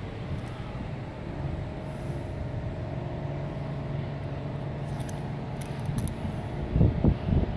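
Steady drone of a workboat's diesel engine pushing a flat barge. Wind buffets the microphone near the end.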